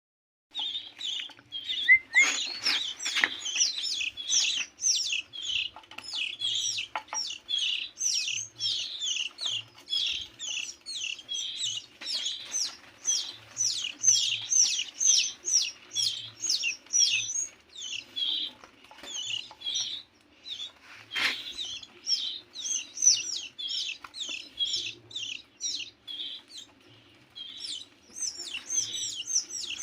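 15-day-old canary chicks begging with high chirps, two to three a second, while being hand-fed, easing off briefly near the end. A few sharp knocks sound among the chirps.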